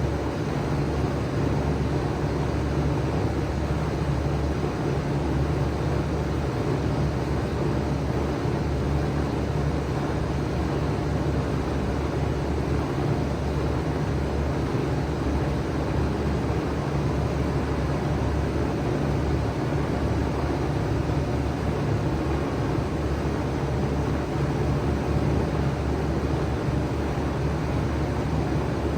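2007 5-ton Bard wall-hung heat pump running steadily in cool mode: a low compressor hum under the even rush of its fan.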